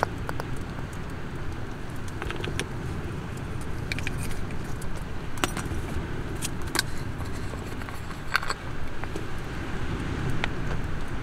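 A spoon clinking against a stainless steel sierra cup now and then while a sauce is stirred in it, about a dozen light metallic taps, over a steady low rumble.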